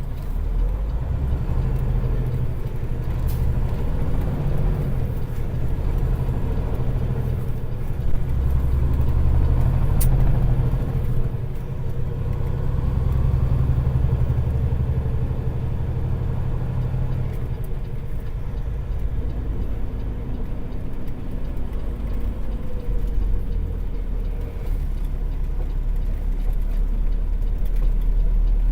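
Heavy diesel truck engine running, a steady low rumble that swells and eases a little.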